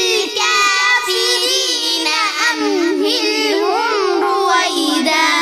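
A child's voice chanting Quranic recitation in long, melodic held notes that rise and fall, without a pause.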